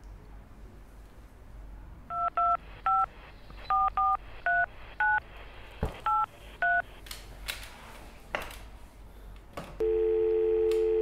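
Telephone keypad tones as nine digits are dialled on a handset, each press a short two-note beep. A few clicks and knocks follow, and about ten seconds in a steady tone comes on the line.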